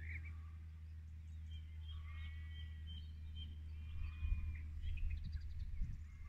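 Several wild birds chirping and whistling over a steady low rumble. Irregular low bumps from about four seconds in point to wind buffeting the microphone.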